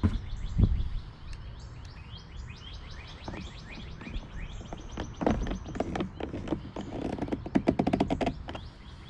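Small birds chirping rapidly in quick falling notes. Scattered clicks and knocks of hands working on the motorcycle's plastic fairing come in clusters about five seconds in and again near the end.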